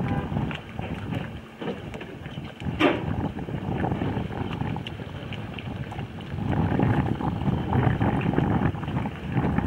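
Wind buffeting the microphone in uneven gusts, growing stronger in the second half, with one short knock about three seconds in.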